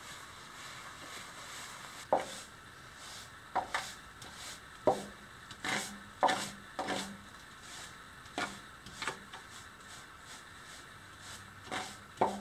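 A hand tool scraping and knocking against cast concrete, about a dozen short, irregularly spaced strokes: excess concrete being cleaned off the base of newly cast shelves.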